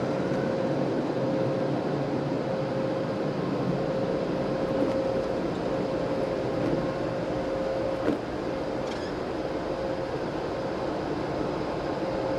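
Automatic car wash air-dryer blowers running, a steady rushing noise with a constant hum, heard from inside the car as it rolls out of the tunnel. A single click about eight seconds in, after which the noise drops a little.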